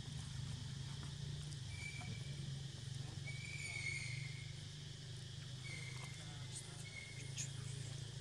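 Baby macaque giving four thin, high-pitched squeals over a steady low hum. The second squeal, about halfway through, is the longest and loudest, at about a second. The call fits a young monkey that is a bit scared while taking food from a hand.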